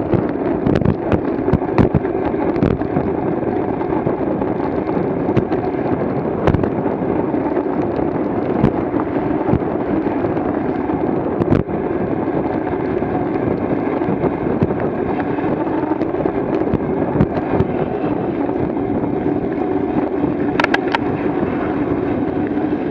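Wind rushing over a camera microphone on a recumbent bicycle moving at over 20 mph: a steady rushing noise with frequent sharp pops of wind buffeting.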